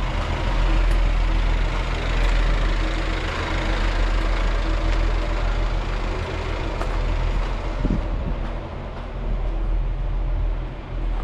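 A Class 143 Pacer railbus's underfloor diesel engine idling steadily at the platform.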